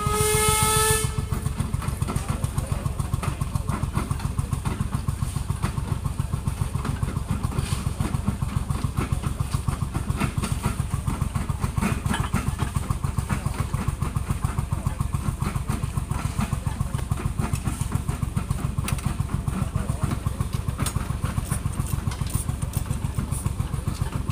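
A whistle sounds briefly and stops about a second in. Then a machine engine runs steadily with an even, rapid beat.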